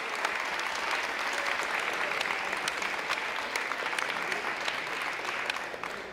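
Audience applauding, many individual claps merging into a steady patter that starts to die away right at the end.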